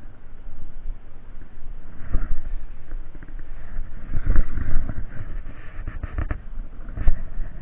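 Wind buffeting the microphone on an open boat at sea, a gusty low rumble, with a few sharp knocks from handling near the end.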